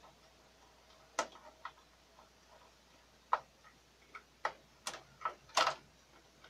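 Irregular sharp clicks and knocks of a screwdriver against the metal carriage rail and plastic parts of an HP OfficeJet 4500 inkjet printer during disassembly, about eight in all, the loudest near the end.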